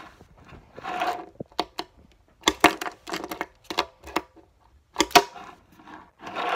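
Tech Deck fingerboard popping ollies on a wooden table: several sharp clacks of the tail snapping down and the wheels landing, some in quick pairs.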